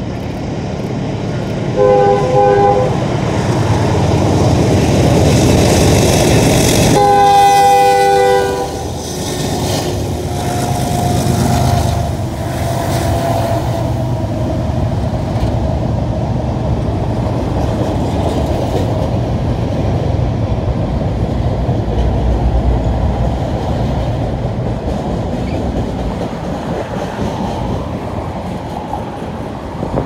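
Diesel freight locomotives passing, five units with a CN C44-9W leading. The horn gives a short blast about two seconds in, then a longer, louder blast around seven seconds in. After that come the steady rumble of the engines and the clatter of the rolling train.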